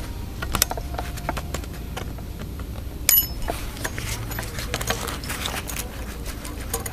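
Small clicks and knocks of fuel injectors and their plastic connectors being handled and worked on a metal fuel rail, with one sharper click about three seconds in, over a steady low rumble.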